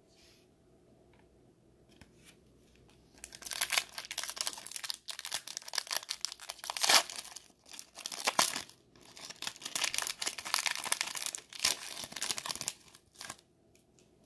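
A foil trading-card pack being torn open and its wrapper crinkled, starting about three seconds in and going on in irregular spurts for about ten seconds.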